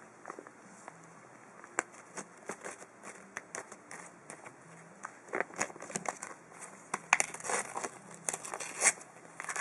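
A cat biting and tearing a printed paper picture: irregular crinkling and ripping of paper, sparse at first and getting busier and louder in the second half.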